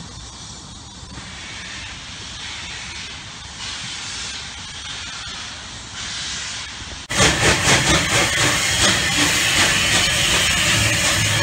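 Bulleid West Country class steam locomotive 34092 'City of Wells' close by, hissing steam, with exhaust beats about four a second. They start abruptly about seven seconds in; before that there is a quieter steady rushing noise that slowly grows louder.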